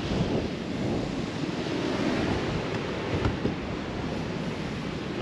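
Sea surf washing in, with wind rushing over the microphone: a steady, even noise. A small knock comes about three seconds in.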